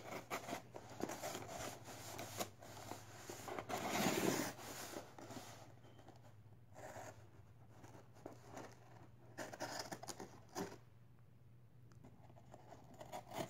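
Utility knife slicing along the packing tape of a cardboard poster box, with scraping, tape tearing and cardboard rustling in irregular bursts, busiest in the first few seconds.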